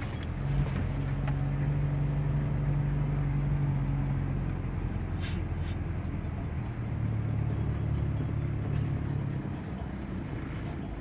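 Car engine and road noise heard from inside the cabin while driving. The engine hum holds steady, then comes back lower in pitch past the middle.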